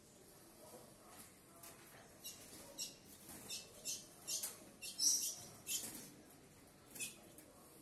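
A young red-cowled cardinal (galo-campina) giving about a dozen short, high chirps at irregular intervals, with the busiest run in the middle few seconds.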